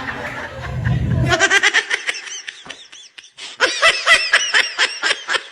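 A person laughing hard in quick, repeated high-pitched bursts, starting about a second and a half in, after a stretch of low rumbling noise and murmur.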